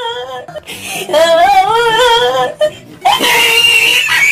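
A high, wavering voice with heavy vibrato, laid over the picture as a sound effect: two long phrases, then a higher held note starting about three seconds in.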